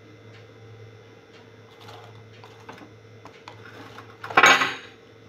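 Steady room hum with faint scattered clicks, then a brief loud clatter about four seconds in that lasts about half a second.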